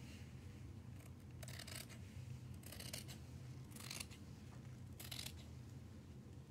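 Scissors cutting cloth: about four short, faint snips roughly a second apart, over a low steady hum.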